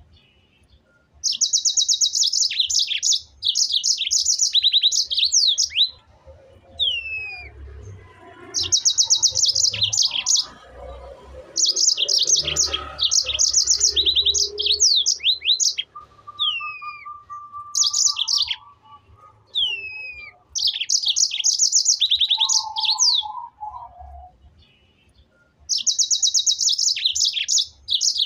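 A bird singing in repeated phrases of rapid, high trilled notes, each phrase lasting a few seconds, with short downward-sliding whistles between phrases.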